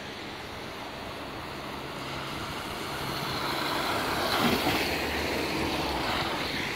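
Steady rain, with a vehicle passing on the wet street: its tyre hiss swells to a peak about halfway through, then slowly fades.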